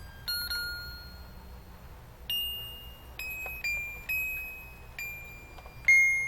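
Mr. Christmas Lights & Sounds of Christmas Carolites playing a Christmas carol in high electronic chime-like notes, one note at a time, each starting sharply and fading, about eight notes at a slow pace.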